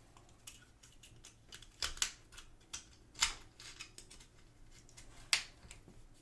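Sharp plastic clicks and snaps from small parts of a Fujifilm FinePix digital camera's lens housing being worked loose by hand. Fainter ticks fall in between, and the louder snaps come about two, three and five seconds in.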